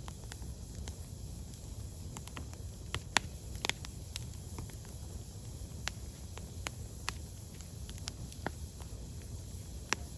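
Firewood burning, with sharp, irregular crackles and pops over a low, steady rumble of the flames. One pop about three seconds in is the loudest.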